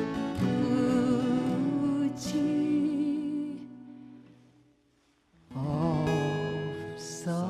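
A woman singing a slow folk song to two acoustic guitars, drawing out long held notes with vibrato; the music fades almost to silence about four seconds in, then her voice returns with another long held note over the guitars.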